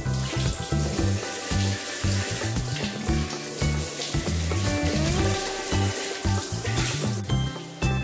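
Handheld shower spray hissing steadily as it rinses a cordless vacuum's plastic dust bin on a tiled floor, with background music over it.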